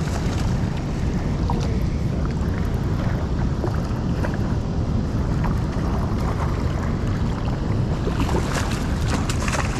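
Steady wind buffeting the microphone over the constant rush of river water flowing below a dam. A run of light clicks and small splashes comes in near the end.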